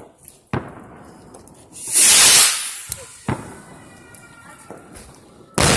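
Fireworks going off: a sharp bang about half a second in, a loud hissing burst about two seconds in, a couple of smaller pops, then another loud bang near the end.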